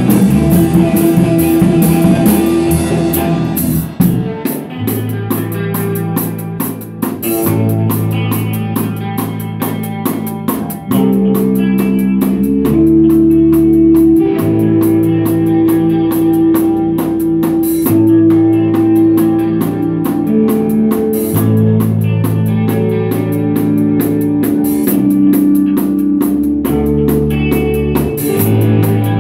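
Rock band playing: electric guitar with drums, the full band loud for the first few seconds, then thinner with long held guitar notes, and building up again about eleven seconds in.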